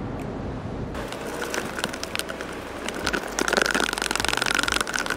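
Handling noise from plastic containers while measuring resin hardener into a graduated plastic mixing cup: scattered light clicks, then a fast crackling rattle from about three and a half seconds in.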